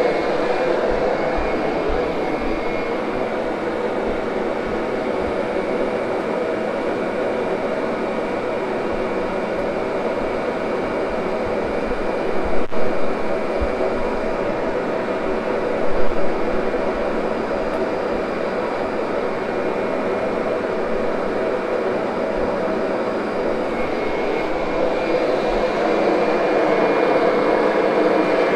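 Kirby upright vacuum cleaner running steadily with a motor whine while grooming carpet, with two brief louder swells about halfway through.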